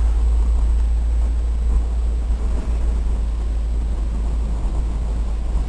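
Wind buffeting the camera's microphone: a steady low rumble with a faint hiss over it.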